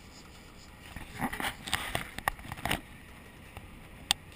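A sportfishing boat's engine running steadily in the background. From about a second in there is a short cluster of knocks and scrapes, and one sharp click comes near the end.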